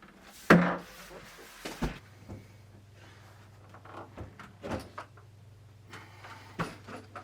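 Fridge freezer door being lifted off its hinge and handled: one louder clunk about half a second in, then several light knocks and taps.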